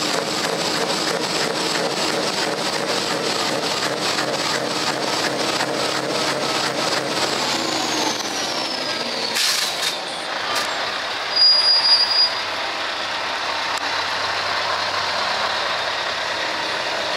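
V8 truck diesel idling through an open, straight exhaust pipe, with a fast, even exhaust pulse. Midway there is a falling whine and a sharp hiss of air, then a louder burst of air hiss from the air brakes. A truck engine then runs more quietly as it drives off.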